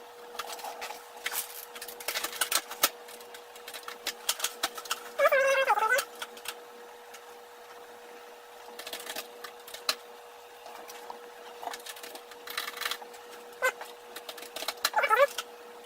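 Irregular clusters of sharp clicks and taps from a computer keyboard and mouse, over a steady electrical hum. Two brief voice-like sounds come in, one about a third of the way through and one near the end.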